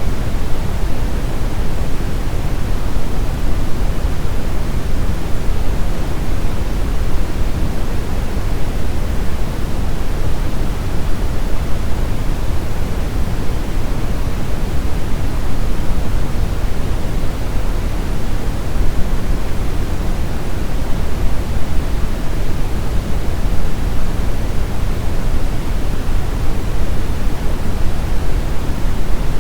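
Brown noise: a steady, even rumbling hiss, heaviest in the bass and thinning toward the treble, with no changes.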